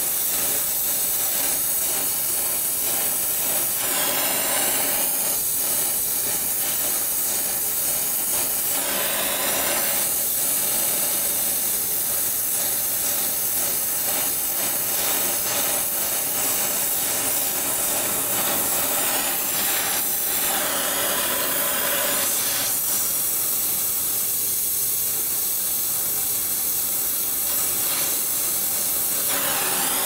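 Oxy-fuel gas welding torch flame hissing steadily against a steel pipe joint; the hiss changes character a few times.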